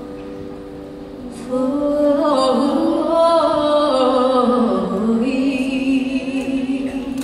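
Live pop song in an arena: a woman's sung melody over the band comes in about a second and a half in and settles into a long held note in the second half.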